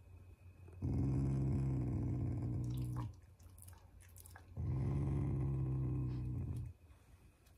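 Black Shiba Inu growling in two long, low, steady growls, each about two seconds, with a pause between them. It is a contented growl given while being petted, not an angry one.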